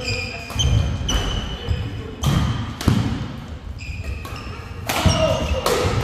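Badminton rally: rackets striking the shuttlecock in sharp cracks about five times, with sports shoes squeaking in short high chirps on the court mat between shots.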